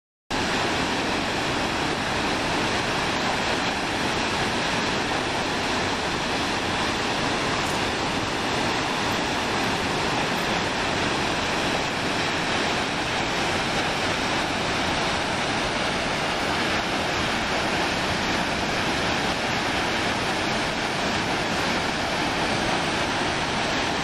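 Waterfall rushing: a steady, even noise of falling water that holds the same level throughout.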